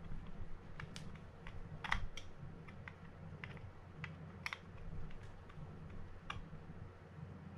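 Small screwdriver working a screw in the rotor of a Mitchell 302 spinning reel: light, irregular metallic clicks and ticks, about a dozen in all, the loudest about 2 s and 4.5 s in, over a steady low hum.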